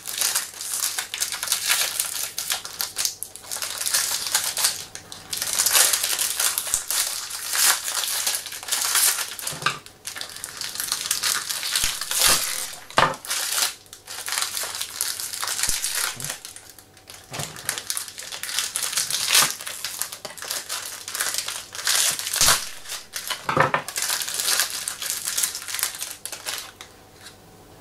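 Paper and thin plastic packing wrap crinkling and rustling as a small capsule-toy figure is unwrapped by hand, with a few sharper clicks and taps along the way.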